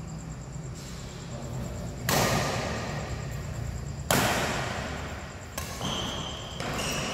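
Badminton rackets striking the shuttlecock during a rally. There are two loud smacks, about two and four seconds in, then lighter hits near the end, each ringing on in the echo of a large hall.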